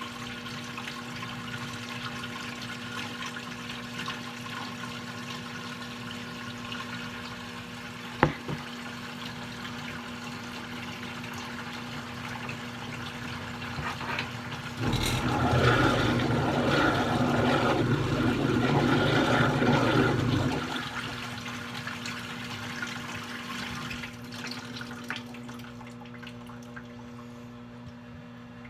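Water running hard for about five seconds, starting about halfway through and then cutting off, over a steady low hum. A single sharp click about eight seconds in.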